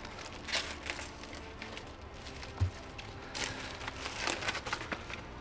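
Packaging bag rustling and crinkling as it is handled, in scattered short crackles.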